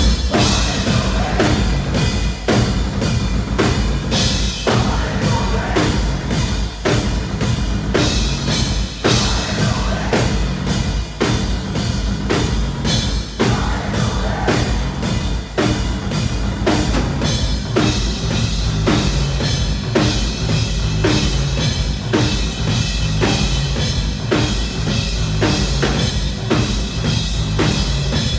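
Live rock music played loud by a band, driven by a steady, fast drum-kit beat over heavy bass.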